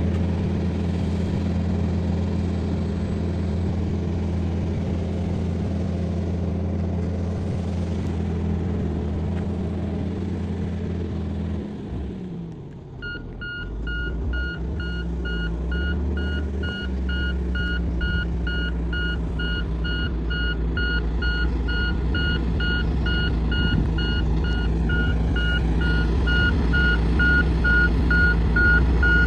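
Komatsu bulldozer's diesel engine running steadily under load. About twelve seconds in, the engine note dips briefly, then the reversing alarm starts beeping steadily as the dozer backs up, over the engine.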